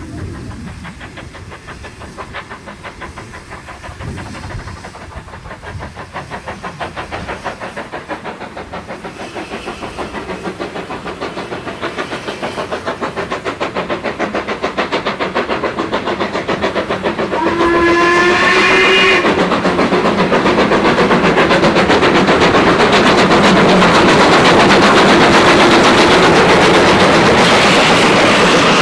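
Steam locomotive working a goods train, its rhythmic exhaust beats growing steadily louder as it comes closer. One steam whistle blast of about a second and a half sounds a little past halfway, then the locomotive and wagons pass close with wheels clattering on the rails.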